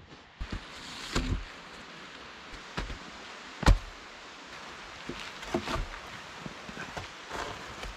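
Scattered short knocks and rustles over a steady faint hiss, with one sharp knock a little under halfway through.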